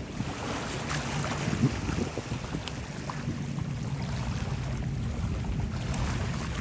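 Wind buffeting the microphone over the wash of sea water, with a faint, steady low engine hum from a passing vessel.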